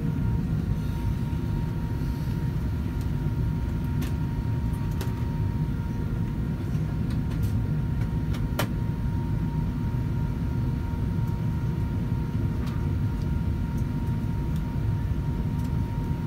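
Steady low rumble of an Airbus A380 passenger cabin, with a faint steady hum tone above it and a few short clicks.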